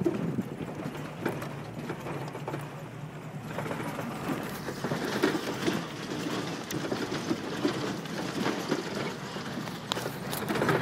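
Jeep driving slowly over a rough, rocky dirt track, heard from inside the cab: a steady low engine hum under constant rattling and clunking as the vehicle jolts over rocks. The rattling grows busier and louder about a third of the way in.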